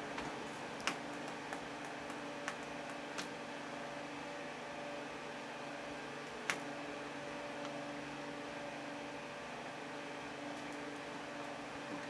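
Steady hum of an electric fan running in a small room, with a few light clicks: four in the first three seconds and one more about six and a half seconds in.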